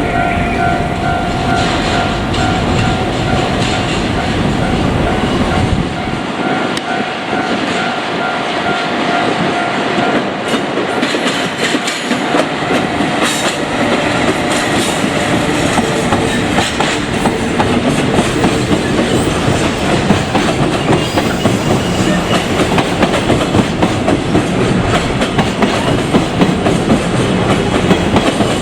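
A train passing over a level crossing, its wheels clacking steadily over the rail joints. Only in the first ten seconds or so, a level-crossing alarm bell rings with a steady repeating two-tone ding.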